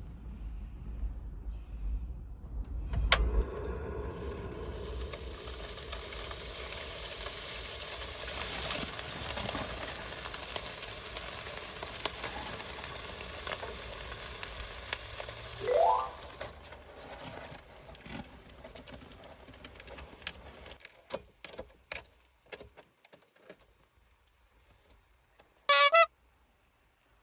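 Food sizzling in a hot pan, starting with a click and then a steady hiss, with a short rising squeal about sixteen seconds in; the sizzle then dies down to scattered crackles. A brief high warbling tone sounds near the end.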